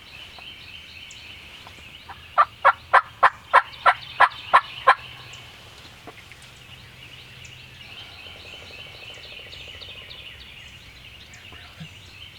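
Wild turkey yelping: a loud series of nine short, evenly spaced yelps, about three to four a second, lasting about two and a half seconds, against a steady high-pitched background.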